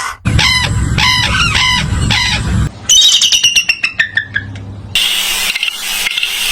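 Wild fowl-like bird calls: a loud run of repeated calling notes, then a quick series of falling chirps, then a harsher, hissier stretch of calling.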